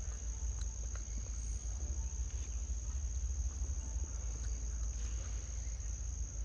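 Insects droning in one steady, unbroken high-pitched tone, over a low rumble.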